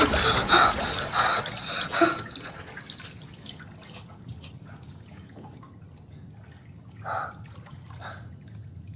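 Water dripping and trickling in a bathtub, quietly. There are a few louder sounds in the first two seconds, then sparse faint drips, with two slightly louder ones near the end.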